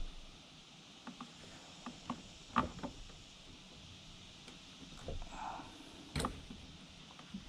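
Scattered small clicks and taps of metal air-conditioning line fittings and a hose-clamp tool being handled. The two sharpest clicks come about two and a half seconds in and again about six seconds in.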